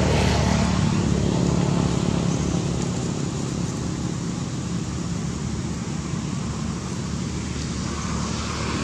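A steady low engine drone, running evenly throughout.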